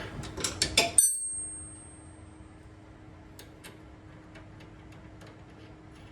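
Metal-on-metal clinks from hand tools working on car suspension parts: a few quick clicks, then a sharp strike about a second in that rings briefly with a high tone, followed by faint scattered ticks.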